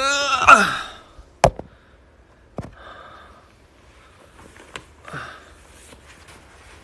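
A man's drawn-out wordless vocal sound, gliding up and down in pitch, in the first second. Then three sharp knocks and taps from a phone being handled and set in place, with faint breaths between.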